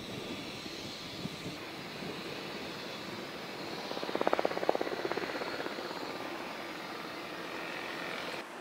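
Su-27 fighter jet engines running on the airfield: a steady rushing whine that swells into a brief fluttering pulse about four seconds in.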